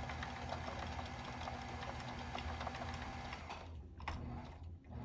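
Motorized rod-wrapping machine running, turning the rod blank as thread winds onto a guide foot: a steady hum with light, quick ticking. It stops about three and a half seconds in.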